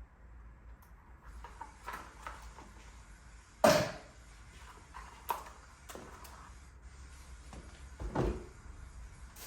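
A few scattered knocks and thumps in a small room, one sharp and much louder than the rest about four seconds in.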